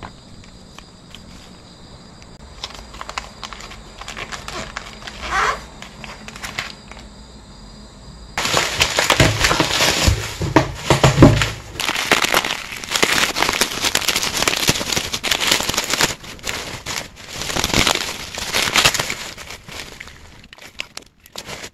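Clear plastic packaging crinkling and crackling as a parcel is handled and unwrapped, loud and dense from about eight seconds in; before that, softer rustling and light clicks of cards and plastic sleeves being handled.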